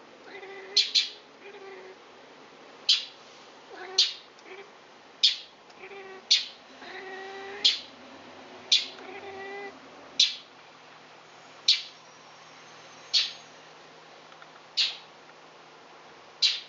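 A domestic cat makes short, pitched meowing chirps at a bird through the first ten seconds or so. Throughout, a sharp, high chirp repeats about once every second or second and a half, and this chirp is the loudest sound.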